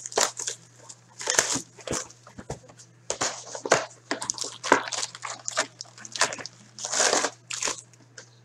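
A 2015-16 Upper Deck Series Two hockey retail box is being torn open by hand, and its wrapped card packs are pulled out and stacked. It comes as a run of short, irregular rustles and crinkles of cardboard and pack wrappers.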